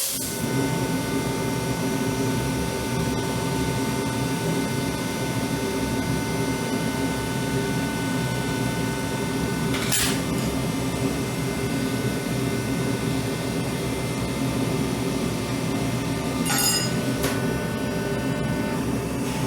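Steady running of forging equipment, a machine noise with a low rumble and a few fixed tones, during hot forging of steel coins. A sharp metallic click sounds about ten seconds in, and a brief ringing clink comes near the end.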